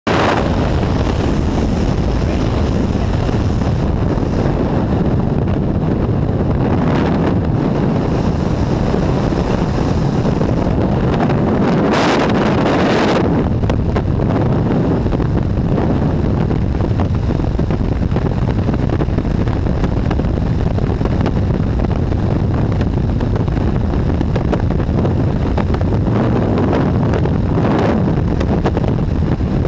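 Loud, steady wind buffeting a camera's microphone during a skydive, from the slipstream at the open aircraft door through freefall. It is a dense rush heaviest in the low end, with brief stronger gusts every so often.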